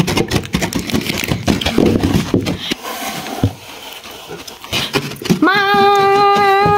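Plastic toy horse figures pushed fast through a sand arena: quick scraping and crunching of sand with small knocks. About five and a half seconds in, a voice calls out one long, held 'Maa!'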